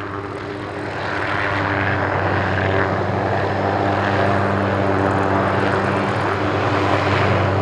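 Crop-spraying helicopter flying low and close, its engine and rotor noise growing louder over the first second or two as it approaches, then holding as a steady drone.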